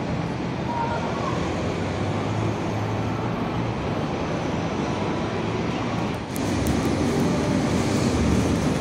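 Street traffic noise: a steady mix of car engines and tyres. About six seconds in it changes abruptly to a louder, deeper engine sound from slow-moving traffic close by.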